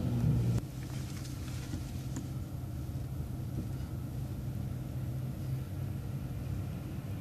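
Steady low rumble of a road vehicle heard from inside, with a louder low hum that drops away about half a second in.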